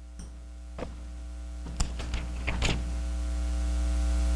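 Paper pages of Bibles being turned: a few short clicks and rustles in the first three seconds, over a steady electrical hum that slowly grows louder.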